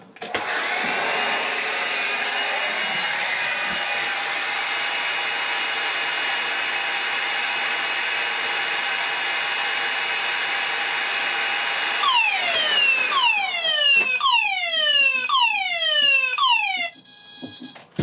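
Hair dryer blowing steadily at a combined smoke and heat detector for about twelve seconds to heat it. Then the detector trips and a Banshee 32-tone sounder set to slow whoop goes off with repeated falling sweeps. The whooping stops about a second before the end, leaving a steady high tone.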